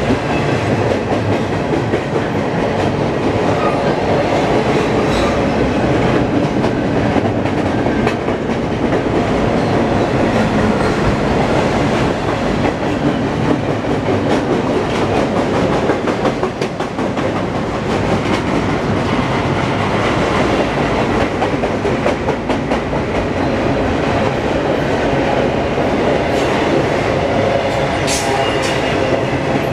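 Freight train of double-stack container well cars rolling past at speed: a loud, steady rumble of steel wheels on rail, with rapid clicking and clacking over the rail joints.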